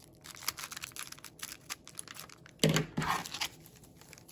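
Crinkling and clicking of handled trading cards and a foil booster-pack wrapper, a run of small scattered rustles and taps. A brief louder sound comes a little before three seconds in.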